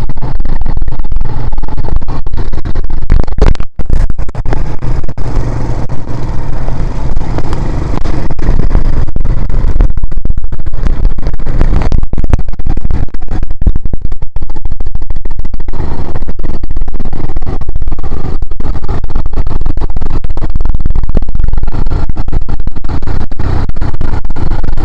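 A quad bike's engine running as it rides over sand, under loud, ragged wind noise on the microphone that distorts the sound.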